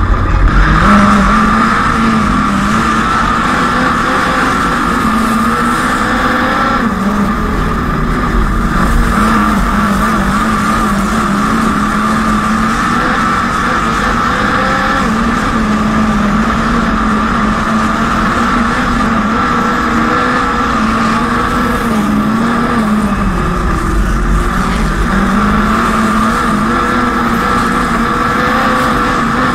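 Dirt-track midget race car engine running at high revs, its pitch held steady down the straights and dipping briefly twice as the throttle is eased for the turns.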